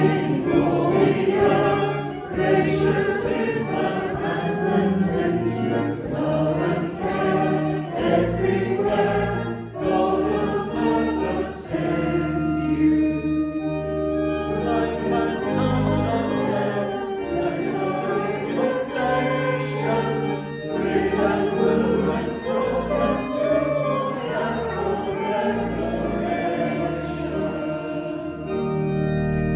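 Church choir singing, with sustained low notes held underneath the voices.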